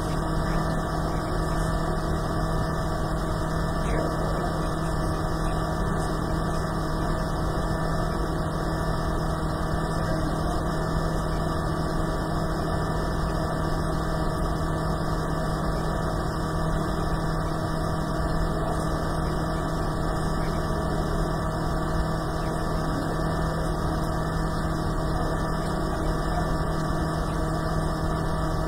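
A steady, unchanging hum made of several held tones, the lowest the strongest, with no speech over it.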